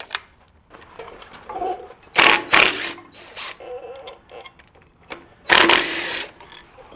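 Cordless DeWalt driver with a socket run in short bursts on a bolt at the tractor's engine pulley: two quick bursts about two seconds in and a longer one near the end, loosening the bolt.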